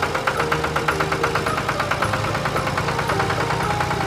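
Tractor engine idling with a rapid, even chug, about six or seven beats a second, over background music.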